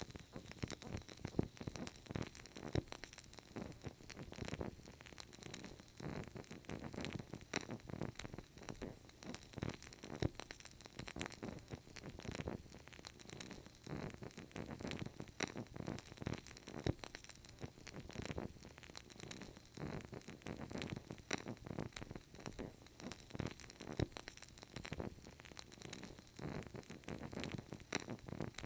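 Burning candle crackling: a continuous, irregular run of small crackles and pops over a soft hiss.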